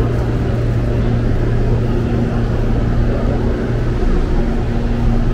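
Stationary electric commuter train humming steadily at the platform, a low even drone with a second, higher hum over it, under a wash of station noise.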